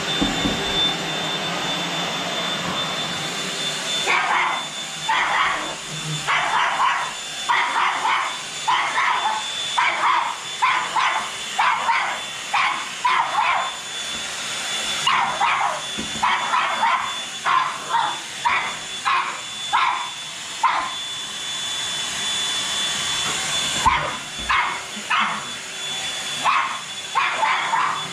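Vacuum cleaner running with a steady motor whine while a dog barks over it again and again, starting about four seconds in, falling silent for a few seconds near the end and then barking again.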